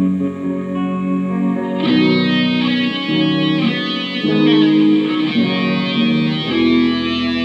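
Electric guitar played through effects in an instrumental passage of held, changing notes, with a brighter, fuller sound coming in about two seconds in.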